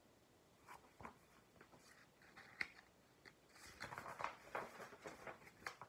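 Pages of a paperback picture book being handled and turned: faint paper rustles and small clicks, a few at first and then a denser run of rustling in the second half.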